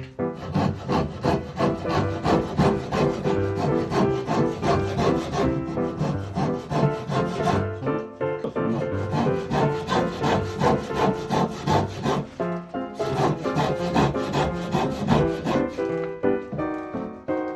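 Wood being sawn by hand in quick, even back-and-forth strokes, while new stock for a door's bottom rail is cut to shape. Background music plays underneath.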